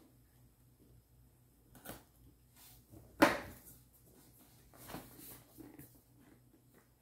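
Cardboard camera box being slid out of its sleeve and handled: a few soft knocks and scuffs, with one sharper knock a little after three seconds in.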